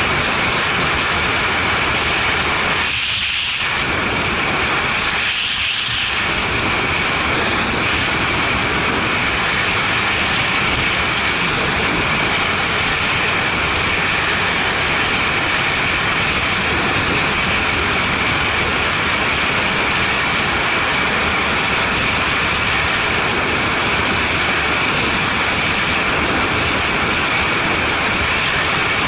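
Harley-Davidson Street Bob V-twin at motorway cruising speed, heard as a steady rush of wind on the microphone over the engine's drone. The lower part of the noise briefly drops twice, about three and six seconds in.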